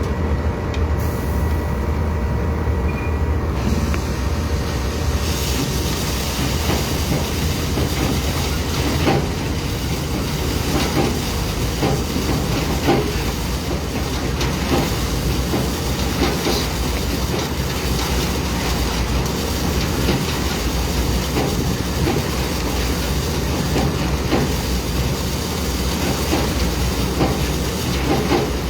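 Heavy construction machinery running steadily, with a constant low engine hum and irregular knocks and clanks.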